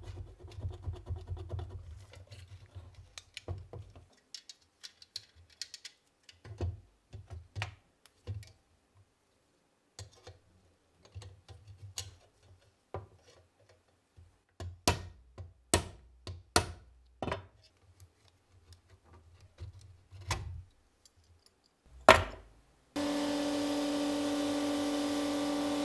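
Rusty steel parts of a STEN Mk2 submachine gun being handled and worked: scattered metal clicks, scrapes and knocks, the loudest a sharp knock near the end. Then an abrasive blasting cabinet starts suddenly, a steady loud hiss with a low hum.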